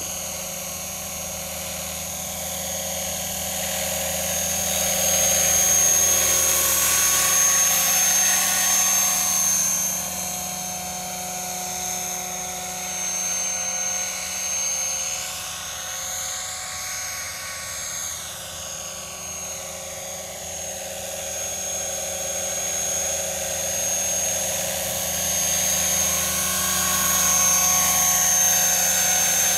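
Scale RC model helicopter (MD500D) in flight: a steady high-pitched whine of its motor and rotor blades. It grows louder as it passes close, about 5 to 9 seconds in and again near the end, and its pitch rises and falls in the middle as it flies out and back.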